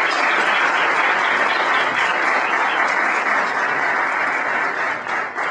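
Audience applauding steadily, the clapping beginning to thin out near the end.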